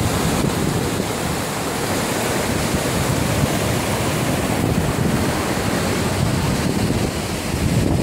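A waterfall's water rushing and splashing down a broad cascade of rock steps into a river, a loud, steady, unbroken noise.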